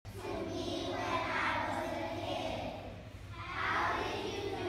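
Children's choir, a large group of young voices singing together, swelling twice.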